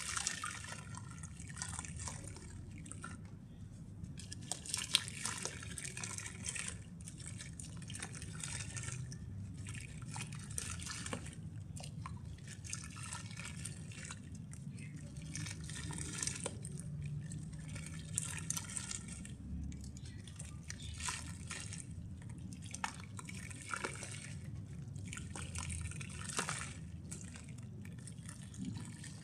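Dried brown mud crumbling into water, crackling and fizzing in repeated bursts every couple of seconds, with sharp clicks and drips.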